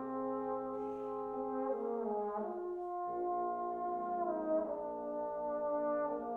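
Four trombones playing sustained chords together. The parts move to new notes about two seconds in, pause briefly about three seconds in, then hold a new chord.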